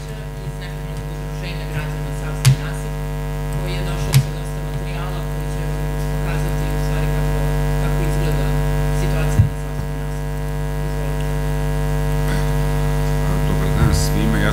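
Steady electrical mains hum in the microphone line, with three short knocks about 2.5, 4 and 9.5 seconds in, as the microphone and table are handled.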